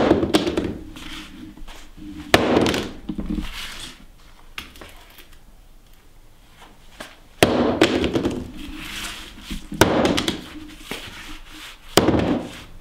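Claw hammer striking a small mobile phone on a workbench, cracking its screen: five hard blows spread out with a few lighter taps between, each with a short ringing tail.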